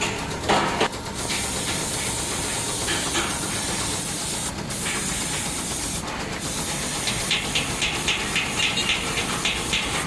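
Steady, loud hiss of compressed air, cutting out briefly twice in the middle, with a fast crackling rattle over it in the last few seconds.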